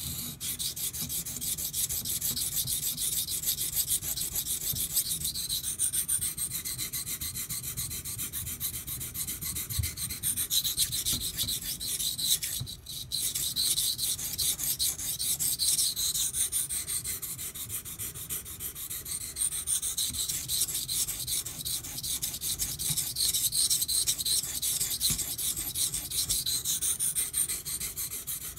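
Steel knife blade being ground on a soaked 400-grit water stone: steady back-and-forth scraping strokes, with a brief pause about halfway. It is the coarse stage of a sharpening, grinding chipped edge damage out of a Ganzo knife's 440C blade.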